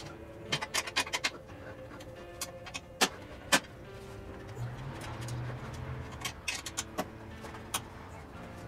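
Hex key turning a bolt on a chrome motorcycle sissy-bar bracket, making scattered sharp metal clicks and taps as it is tightened down and repositioned: one cluster about a second in, single clicks around three seconds, another run near the end.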